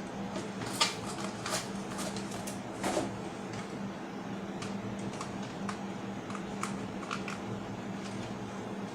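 Scattered sharp clicks and knocks of objects being handled, the loudest about a second in and again near three seconds in, over a steady low hum.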